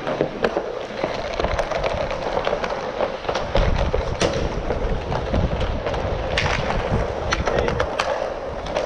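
Inline hockey skate wheels rolling on plastic sport-court tiles, a steady grinding hiss, with many sharp clicks of sticks and puck on the floor scattered throughout.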